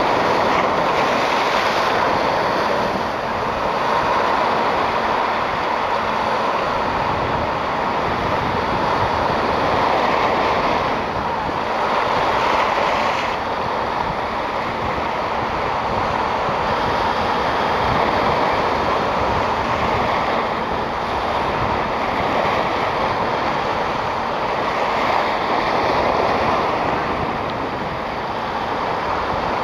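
Small waves of the Mediterranean washing and splashing over shoreline rocks, a steady wash that swells and eases every few seconds.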